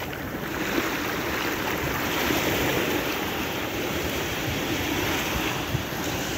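Small ocean waves breaking and washing up a sandy beach at the water's edge: a steady hiss of surf that swells about a second in.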